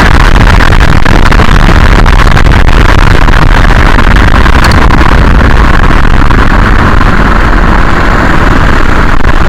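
VW Golf Mk4 TDI on the move, heard from a camera filming its suspension: loud, steady road and wind rumble with many short knocks and rattles scattered through it, the kind of knocking/rattling the car is being driven to track down.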